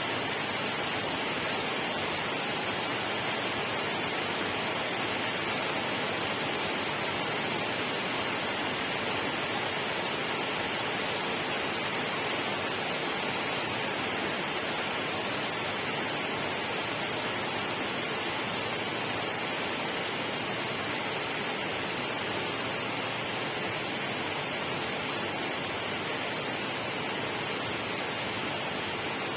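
Steady, unbroken rushing of water, an even hiss with no distinct splashes or drops standing out.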